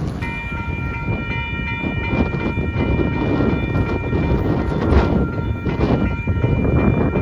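Railroad grade-crossing warning bell ringing steadily as the crossing signals activate and the gate arms lower, starting a moment in. Heavy wind buffets the microphone underneath.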